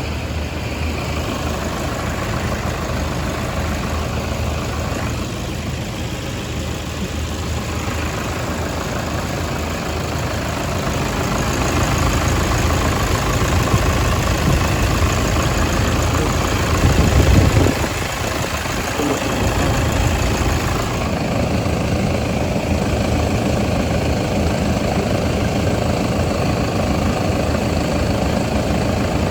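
Car engine idling steadily with the air conditioning running while refrigerant is charged into the system. A brief louder low rumble comes about seventeen seconds in.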